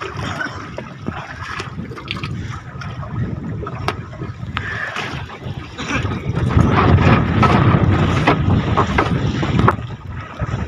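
Wind buffeting the microphone over open water, with scattered splashes and knocks as fishermen haul a wet fishing net up onto a raft by hand. A stronger gust swells a little past the middle and cuts off shortly before the end.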